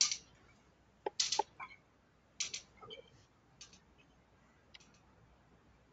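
Several faint, short clicks and breathy mouth noises at a computer microphone, including mouse clicks as the presentation slides are changed.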